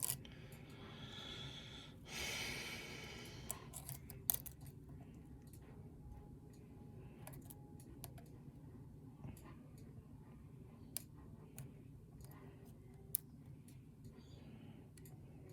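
Faint scattered metallic clicks of a lock pick and tension tool working the pins of a challenge lock held in a deep false set, a few sharper ticks among them. A breathy exhale about two seconds in.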